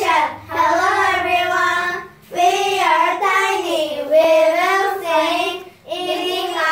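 A group of young children singing together in unison, in three phrases separated by short breaths.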